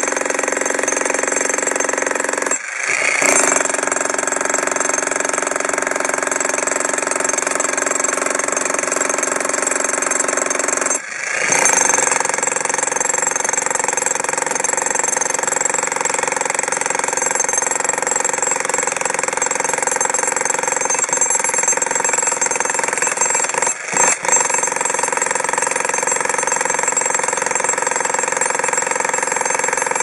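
Arksen 1500 W electric demolition hammer pounding its chisel bit into a concrete slab, running steadily with a rapid, even hammering. It cuts out for a moment three times: about three seconds in, at about eleven seconds, and near twenty-four seconds.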